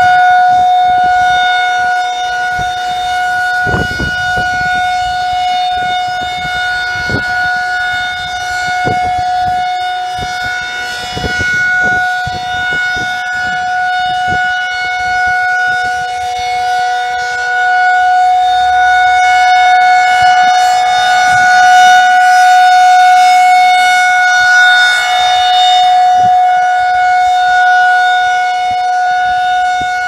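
Rotating electronic tornado warning siren sounding a single steady tone for its monthly test, the pitch unchanging while the volume slowly swells and fades as the horn turns.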